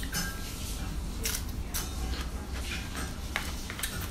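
Eating with wooden chopsticks from a plastic takeout tray: a few short, sharp clicks of the chopsticks on the tray and food, over a steady low hum.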